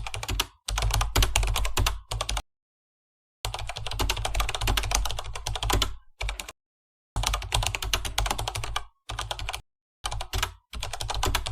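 Rapid, dense clicking that sounds like typing on a keyboard, with a low thud under the clicks. It comes in about eight bursts of half a second to two and a half seconds, each starting and stopping abruptly with dead silence between.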